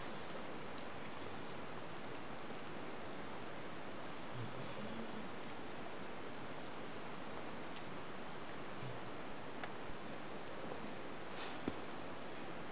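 A dog licking another dog's face and head: faint, wet tongue clicks scattered over a steady hiss, with a few louder smacks near the end.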